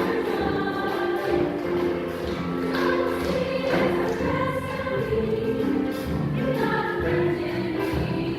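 Junior high school choir singing sustained notes in harmony.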